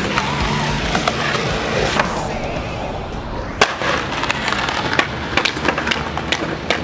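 Skateboard wheels rolling on concrete, with sharp clacks of the board striking the ground, the loudest about three and a half seconds in.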